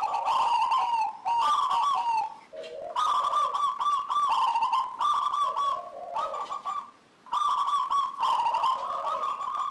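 Local zebra dove (perkutut) singing in full voice: phrases of rapid, trilling, warbling coos, each a second or two long, repeated with short pauses between them.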